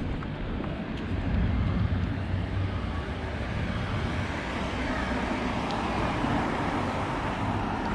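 Road traffic noise: a steady hum of cars on nearby streets, swelling slightly a second or two in.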